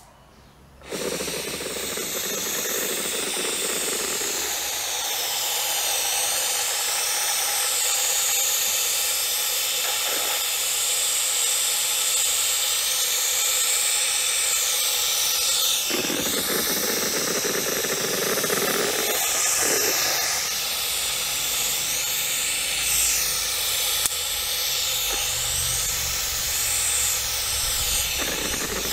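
Paint spray gun hissing steadily as it sprays black paint onto a small two-stroke engine's recoil starter cover, with brief breaks about 10, 16 and 20 seconds in. The hiss shifts in tone as the gun sweeps across the part.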